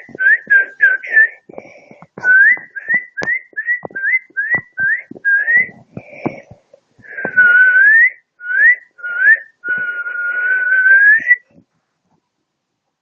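Whistling: a quick run of short upward-sliding notes, about two a second, with faint clicks between them. Then come two longer notes, the last held about a second and a half and rising at its end, before it stops shortly before the end.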